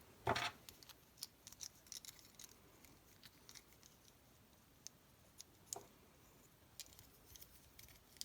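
Faint clicks and taps of the small metal and plastic parts of a dismantled Hot Wheels die-cast car being handled, with one louder knock just after the start.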